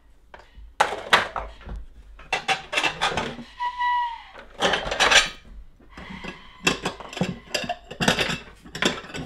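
Ceramic plates and bowls clinking and knocking against each other and the cupboard shelf as they are taken out and stacked, in a quick irregular series.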